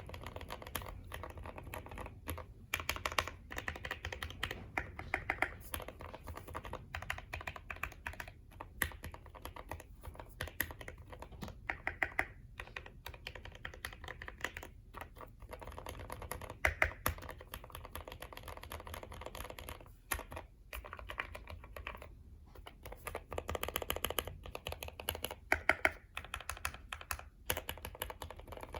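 Typing on a Keychron Q6 mechanical keyboard with lubed Gateron Red linear switches and PBT keycaps, foam- and tape-modded for a deeper, quieter sound: a steady run of rapid keystrokes with a few brief pauses.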